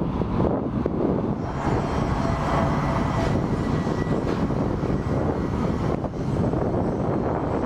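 Large cargo jet's engines rumbling steadily on takeoff, with wind buffeting the microphone.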